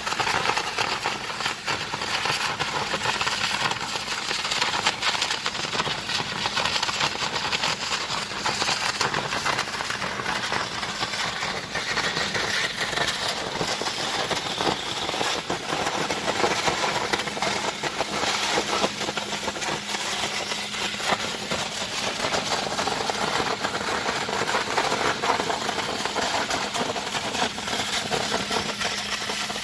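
Hydrodemolition robot's high-pressure water jet blasting concrete: a continuous loud hissing rush full of rapid crackle, with a steady engine or pump hum underneath.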